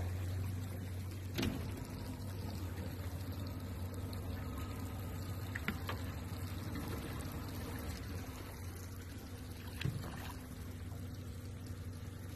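Water trickling and splashing beside the boat's hull as a jug fishing line is worked in the water, over a steady low rumble, with three faint knocks spread through.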